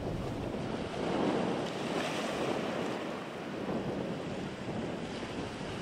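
Wind buffeting the microphone: a fluctuating rushing noise with no distinct engine note, horn or knock.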